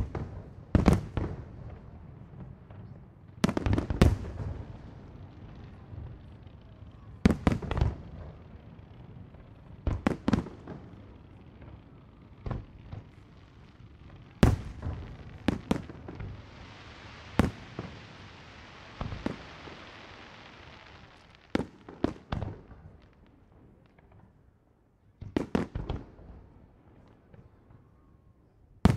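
Aerial fireworks shells bursting, a series of sharp booms every few seconds, often in quick pairs, each followed by a rolling low rumble. For several seconds in the middle a steady hiss runs under the bursts.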